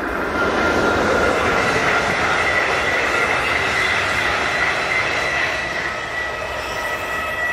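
Passenger multiple-unit train passing close by, a dense rushing rail noise with a steady high whine running through it. It swells in the first second and slowly eases off toward the end.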